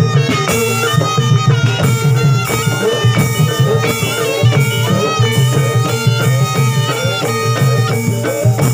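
Barongan dance accompaniment music: a shrill reed wind instrument plays a fast, stepping melody over continuous drumming.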